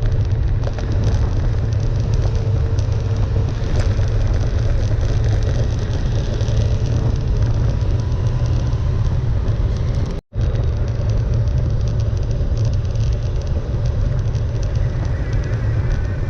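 Steady low rumble of road traffic and vehicle noise. It breaks off for a split second about ten seconds in.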